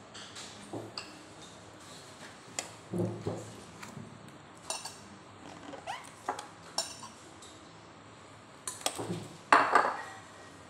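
Ceramic bowls and metal serving spoons clinking and knocking as dishes of food are set out on a table. The sharp clinks are scattered, with the loudest clatter about nine to ten seconds in.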